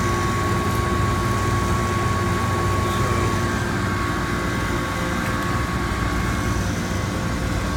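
Steady drone of running refrigeration and ventilation machinery, with a constant high whine over it and a few fainter steady tones.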